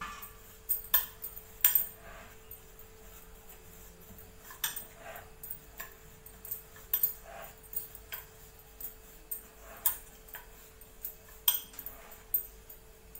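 Wooden rolling pin rolling out paratha dough on a wooden rolling board, with irregular light knocks and clacks as the pin strikes and shifts on the board. A faint steady hum runs underneath.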